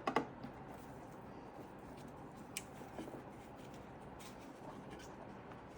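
Faint handling of computer parts on a bench: two sharp clicks at the start, a light click about two and a half seconds in and a few soft taps, over quiet room noise.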